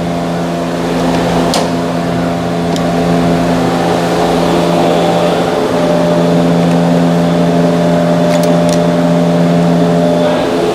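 A steady, loud motor drone with an unchanging pitch, like an engine or machine running nearby, with a few short sharp clicks from hand tools.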